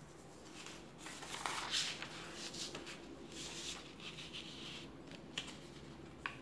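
A sheet of paper rustling and sliding on a tabletop as it is folded and creased by hand to make a paper airplane, in several noisy bursts, with two short sharp ticks near the end.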